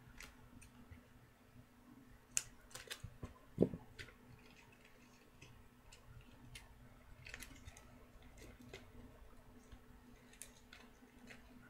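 Faint scattered clicks and crinkles of hands working duct tape and tin foil, with a louder knock about three and a half seconds in.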